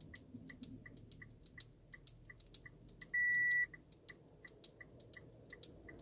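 Hazard-light indicator ticking steadily inside a Mitsubishi Outlander PHEV's cabin, about three ticks a second. About three seconds in comes a single half-second electronic beep, the car's signal that the remote-control Wi-Fi module has been reset by the alternating lock/unlock presses.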